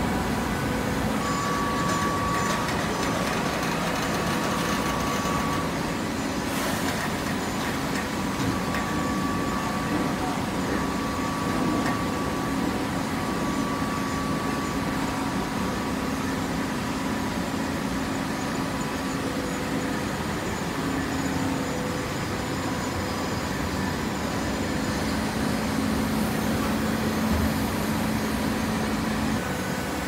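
Fully automatic horizontal hydraulic baler running, a steady machine noise with a constant hum and a whine that comes and goes from its hydraulic power unit.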